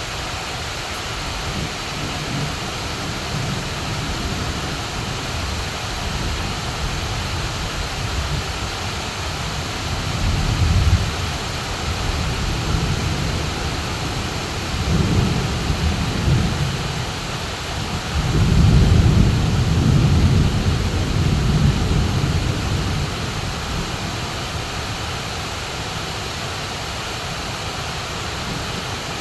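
Heavy rain pouring steadily, with low rolls of thunder: a short one about a third of the way in, then longer rumbles past the middle, the loudest about two-thirds through.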